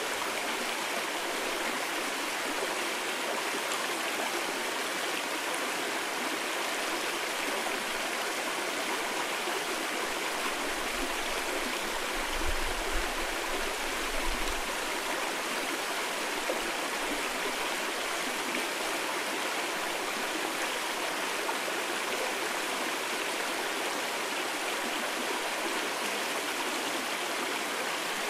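Mountain stream water rushing steadily over rocks. A brief low rumble of wind buffeting the microphone comes in about halfway through.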